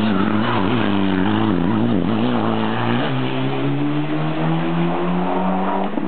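Turbocharged inline-four of an antilag-equipped Mitsubishi Lancer Evolution IX rally car taking a hairpin. The revs waver up and down through the corner, jump about halfway, then climb steadily as the car accelerates away.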